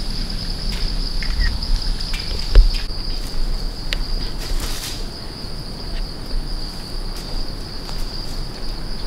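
Steady, high-pitched drone of forest insects, with a single sharp knock about two and a half seconds in.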